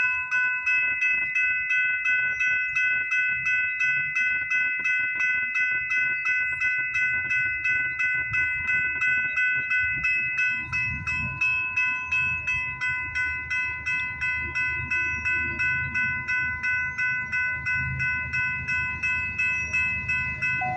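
Railway crossing warning bell ringing steadily, about two strokes a second, as diesel locomotives of an approaching freight train rumble in, growing louder from about halfway through.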